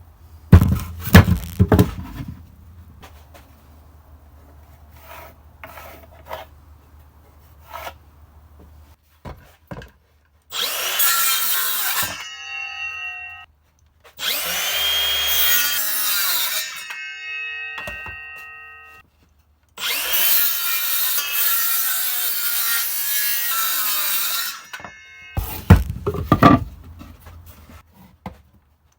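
Wood being cut with a saw in three separate spells, each starting and stopping abruptly. A steady whine sounds between the cuts, and sharp knocks of wood being handled come at the start and again near the end.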